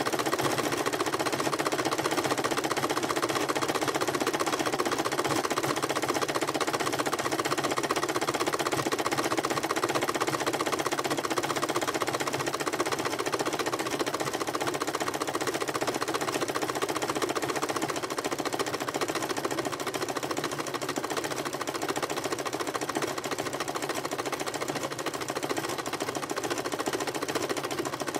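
Electric sewing machine stitching continuously through a coiled, fabric-wrapped rope, its needle running in a fast, even rhythm. It gets slightly quieter about two-thirds of the way through.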